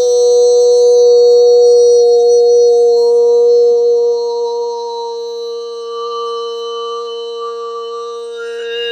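A man's voice toning one long held note, a steady chant-like vowel with no words. It softens about four seconds in.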